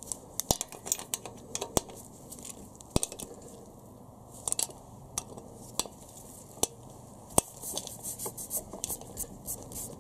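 Draper hand ratchet clicking as 10mm bolts are done up: single sharp clicks spaced out at first, then quicker runs of clicks near the end.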